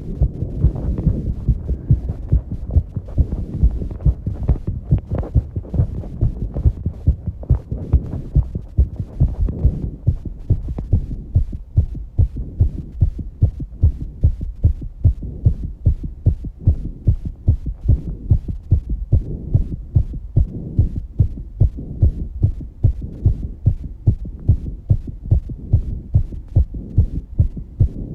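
A young woman's fast heartbeat picked up close on the chest: a steady, quick train of low thuds after exercise. Heavy breathing is heard along with it for about the first ten seconds, then it fades and leaves the heartbeat alone, as when the breath is held.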